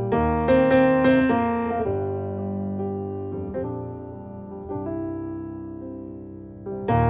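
Slow, quiet piano music. A chord is struck at the start with a few melody notes over it, sustained chords fade through the middle, and a new loud chord comes near the end.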